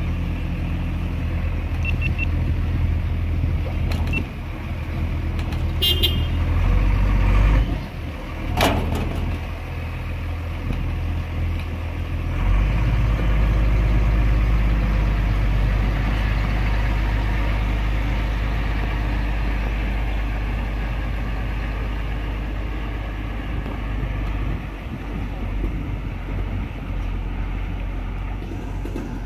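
Mercedes-Benz Unimog truck's diesel engine running low and steady as it drives slowly through floodwater. A short toot comes about six seconds in, and a single sharp knock a little before nine seconds.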